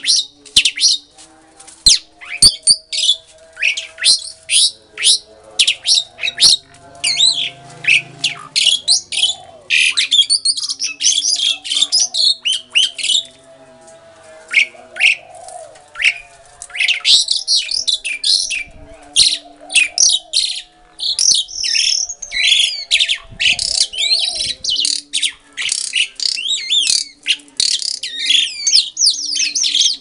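Asian pied starlings singing: a fast, busy run of short whistles, squawks and chatter, easing briefly about halfway through. The two birds answer each other, a back-and-forth song that breeders take as the sign of a matched pair.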